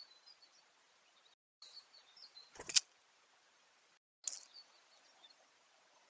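Faint steady hiss with short, high wild-bird chirps in three scattered groups, and one sharp knock about two and a half seconds in, the loudest sound. The sound cuts out completely twice for a moment.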